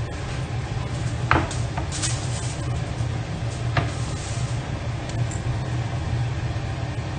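Pork belly frying in a stainless steel wok, sizzling with a couple of sharp pops of spitting fat, about a second in and again near the middle, over a steady low hum.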